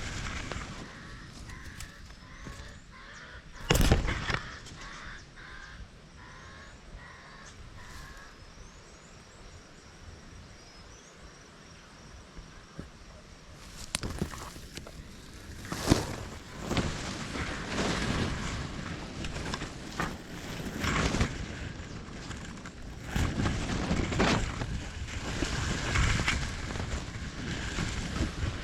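A bird calling over and over, about two calls a second, for the first several seconds, with a sharp knock about four seconds in. From about halfway, gusts of wind buffet the microphone in irregular surges with more knocks.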